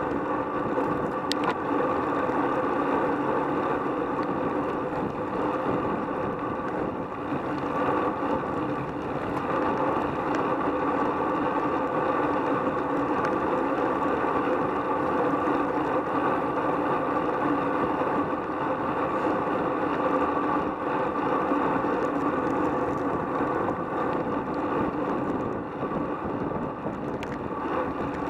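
Steady wind rush and road noise picked up by a bicycle-mounted action camera riding at around 20 mph in a bunch of road cyclists, with a constant hum running through it.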